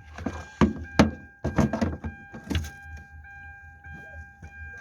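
Hand work on car parts: several sharp clicks and knocks in the first half, over a steady high electronic-sounding tone that continues to the end.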